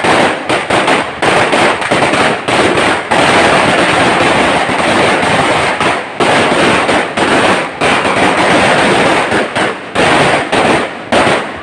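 A Phoenix 1,000-round firecracker string going off in a loud, rapid, continuous crackle of bangs. It is most solid in the middle, with short gaps between bursts in the second half.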